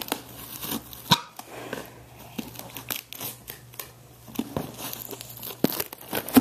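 Plastic packaging being handled and torn open: irregular crinkling and tearing with scattered sharp crackles, the loudest about a second in and near the end.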